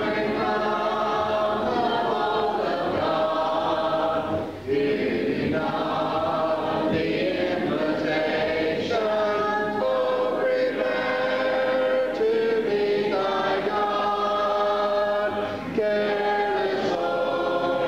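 Congregation singing an invitation hymn a cappella, many voices holding long notes together and moving from note to note.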